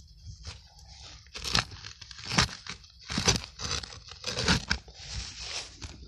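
Earth and roots tearing and crumbling in a series of scraping tugs, about five, as a gloved hand wrenches at a rusted metal box buried in the soil, working it loose.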